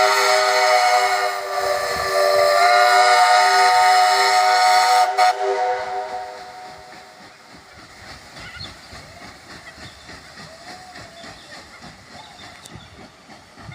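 Paddle steamer's steam whistle blowing a long, loud blast that dips briefly and then sounds again, cutting off suddenly about five seconds in. After that only a faint low rumble remains.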